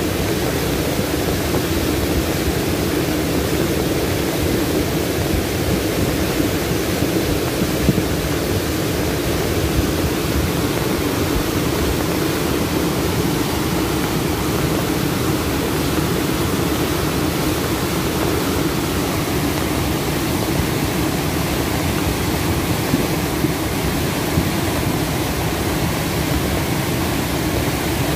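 Floodwater of a river in spate, rushing with a steady, loud roar.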